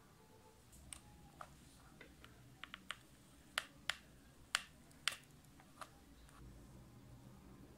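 About a dozen sharp, irregular clicks from handling a hot glue gun and a small clear plastic box, the loudest coming in the middle, over a faint low hum.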